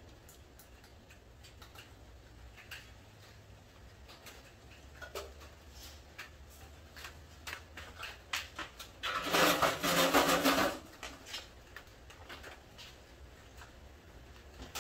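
Scattered light taps and clicks, then about nine seconds in a loud scraping, rattling burst of under two seconds as the aluminium stepladder is moved along the concrete floor.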